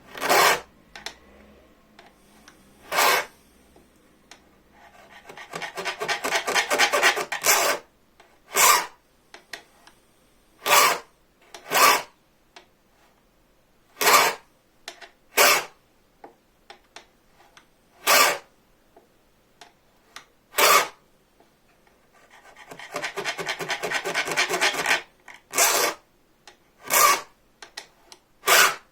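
Hand file rasping across the edge of a bow-saw blade, cutting the first pass of its teeth. It makes single strokes spaced one to a few seconds apart, with two runs of quick, short strokes, one early and one about three quarters of the way through.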